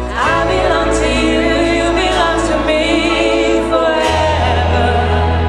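Music: singing voices with vibrato over held low bass notes, the bass moving to a new note about four seconds in.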